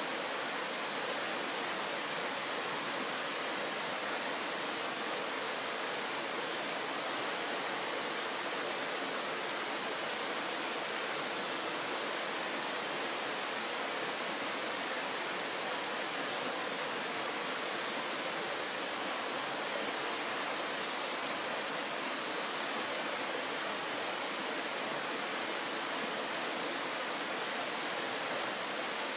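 Shallow mountain stream flowing over a stony bed and small riffles: a steady, even rush of water that does not change.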